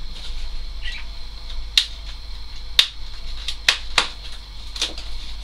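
Packaging being handled as a hi-fi speaker is taken out of its box: about five sharp clicks and crackles over faint rustling.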